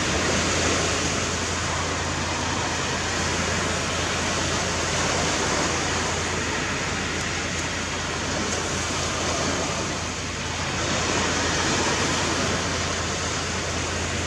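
Steady rushing noise of sea surf breaking on the beach, easing slightly about ten seconds in.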